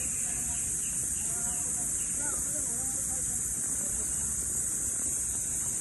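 Steady high-pitched insect buzzing from the surrounding trees, with faint, low voices murmuring in the first half.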